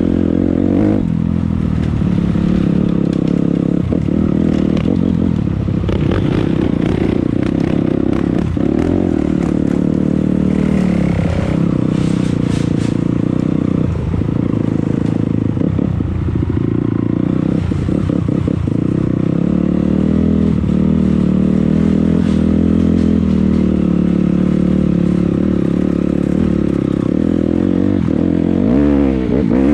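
A 250cc dirt bike engine running under throttle on a trail, its pitch rising and falling as the rider works the throttle, with intermittent clattering knocks; near the end the revs climb.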